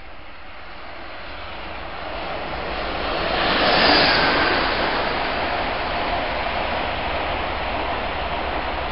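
ICE 1 high-speed train passing at speed behind a noise barrier wall: a rushing noise that builds, peaks about four seconds in, then runs on steadily as the long set of coaches goes by.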